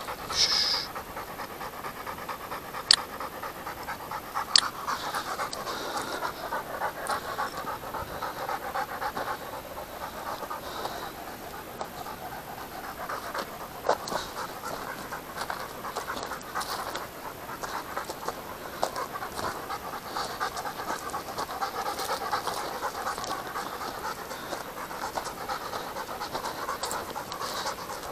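Hunting dog panting steadily close by, with two sharp clicks about three and four and a half seconds in.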